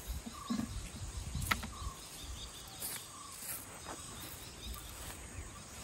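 Outdoor forest ambience: a bird repeats a short, clear note about every second and a half over a faint insect hiss. A single sharp click comes about a second and a half in, with a few soft low thuds.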